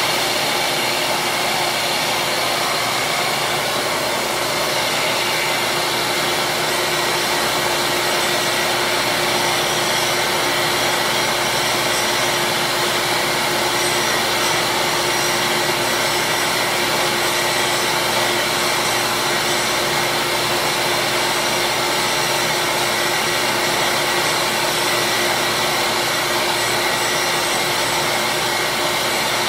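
Bench grinder's motor and wheel running with a constant whir and a steady hum as small plastic slider pieces are held against the wheel and shaped.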